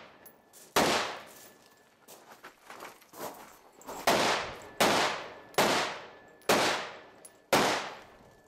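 Rifle shots: one about a second in, then after a pause of about three seconds five more, roughly one a second, each sharp crack followed by a fading ring.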